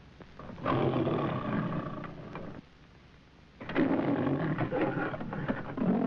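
The lion of the MGM trademark logo roaring twice: one roar about two seconds long starting under a second in, and a second starting about halfway through that runs on past the end. Under the roars is the steady hiss and crackle of an old film soundtrack.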